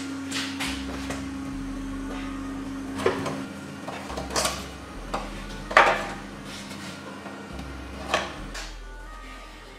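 A steel screwdriver clinking and scraping against the rusted frame and fuel-tank mount of an old Honda motorcycle, as it prods and pries. There are several sharp metal clinks, the loudest about six seconds in, over quiet background music.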